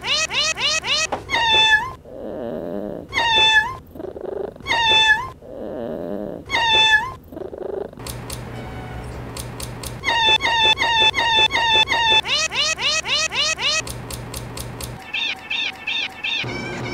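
Domestic cats meowing over and over in a repeating rhythm: quick runs of short meows and longer meows that come back almost identically about every two seconds. Low purring sits between some of the calls.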